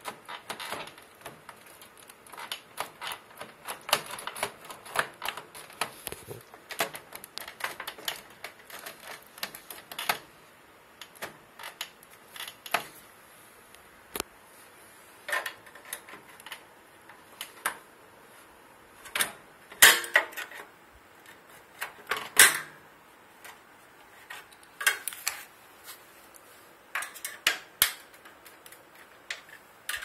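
Screwdriver working a screw on a microwave oven's sheet-metal chassis: irregular runs of light metal clicks and taps, with two louder knocks about two-thirds of the way through.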